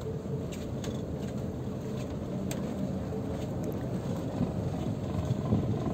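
Steady low rumble of a river cruise ship under way, with a few faint ticks.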